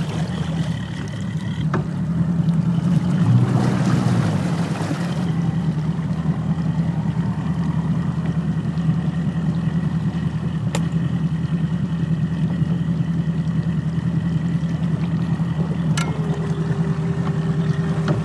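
Brand-new Mercury Pro XS outboard motor, just started for its break-in, idling with a steady low engine note; the owner calls it a little quieter. Near the end a click is followed by a steady electric whine as a Minn Kota Raptor shallow-water anchor swings down.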